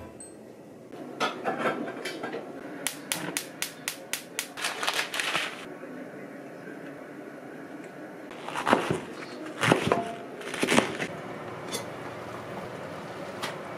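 Kitchen sounds: a quick run of about a dozen sharp clicks, then three louder splashing thuds about a second apart as chicken wings are dropped into a stainless pot of water on a gas hob.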